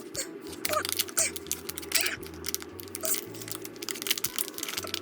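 Toy packaging being torn and crinkled open: a run of sharp crackles and rips at irregular intervals.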